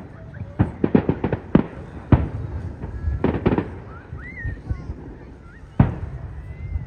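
Fireworks bursting overhead: a rapid run of sharp bangs and crackles over the first three and a half seconds, then a lull, then one loud single bang about six seconds in.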